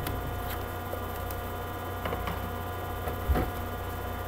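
Steady electrical mains hum, with a few faint taps and scrapes from trading cards being handled, about five scattered through.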